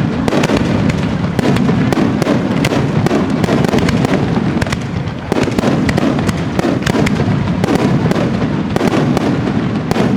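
Aerial fireworks going off in a dense, continuous barrage: rapid crackling reports over a constant low rumble of bursts, with a brief lull about five seconds in.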